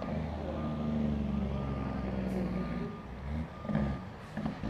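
A vehicle's reversing alarm beeping about once a second over the steady hum of a truck engine, with a few short bumps near the end.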